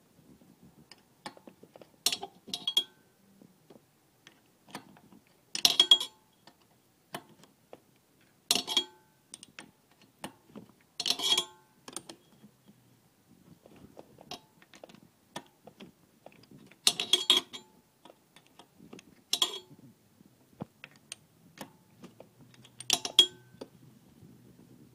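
Metal spanner clinking and clicking against the intake manifold nut of a pit bike engine as it is worked loose, in about eight short irregular bursts with a brief ring after each.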